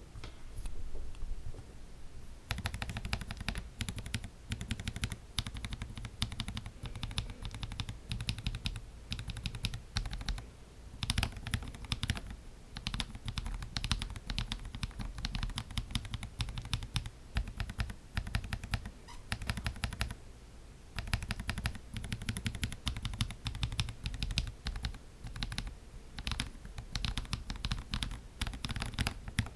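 Typing on lubed tactile mechanical keyboard switches built from Gateron milky green housings, Halo True stems and 63.5 g Sprit slow-curve springs: a dense run of keystroke clacks with brief pauses about 2, 10 and 20 seconds in. The sound is relatively quiet for a non-silent switch.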